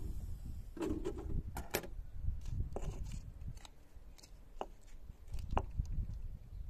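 Thin clear plastic bottle being handled and turned against a wooden tabletop: scattered sharp clicks and crinkles of the plastic, about half a dozen, over a low rumble.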